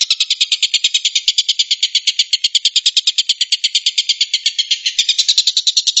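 Oriental dollarbird (tengkek buto) giving its rapid-fire 'tembakan' call: a fast, even train of high-pitched notes, about ten a second, with no pause.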